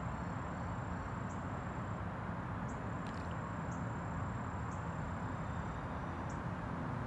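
Outdoor ambience: a thin, high, steady insect trill with a short chirp about once a second, over a low steady background rumble.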